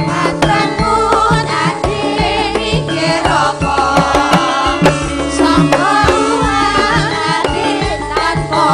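Live campursari music: a Javanese kendang hand drum beats a steady rhythm under keyboard and electric guitar, while singers sing into microphones with a wavering, ornamented melody.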